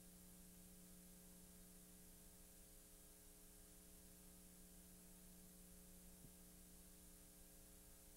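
Near silence: a faint steady electrical hum with hiss, and one faint click about six seconds in.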